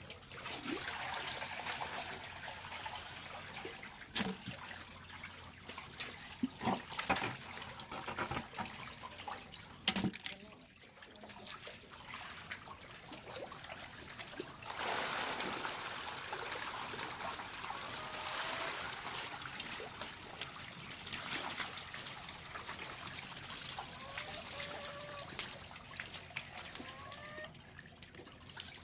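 Tap water running and trickling into a basin, with splashing and a few sharp knocks, while fish are washed. The flow drops off about ten seconds in and comes back strongly about five seconds later.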